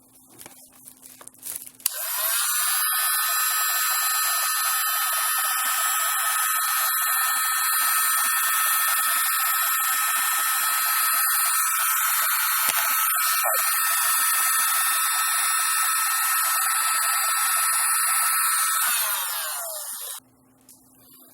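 Heat gun switched on about two seconds in, running steadily with a high whine over the rush of air for about eighteen seconds, then switched off and winding down shortly before the end.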